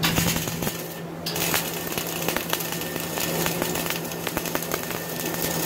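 CO2 (MIG) welding arc on steel plate, crackling and spitting steadily with frequent sharp pops as a vertical bead is run.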